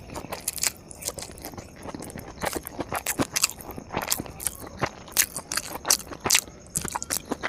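Close-miked chewing with many irregular crisp crunches and clicks of food being bitten and chewed.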